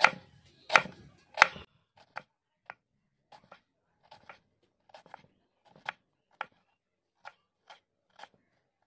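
Kitchen knife slicing an onion finely on a wooden chopping board: sharp taps of the blade striking the board, three loud ones at first, then lighter, about two a second.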